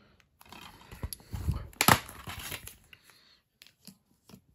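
Plastic DVD case being handled and opened: rustling with a sharp click about a second in and a louder snap just before two seconds, then a few faint ticks.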